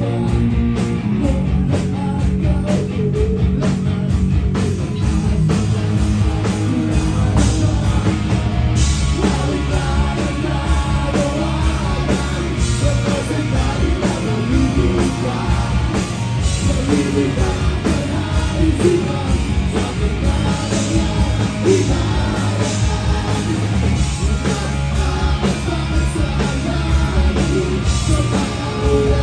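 Live rock band playing loudly, with electric guitars, bass and drums. A male vocalist sings over the band from about nine seconds in.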